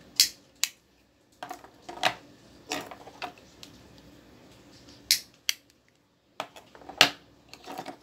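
Sharp metallic clicks and taps from novelty liquor-bottle-shaped lighters being worked and handled, about a dozen in eight seconds, in irregular clusters with short pauses between them.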